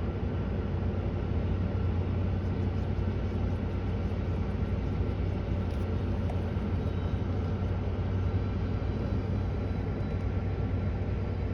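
A vehicle engine running steadily with a low, even hum and no change in speed.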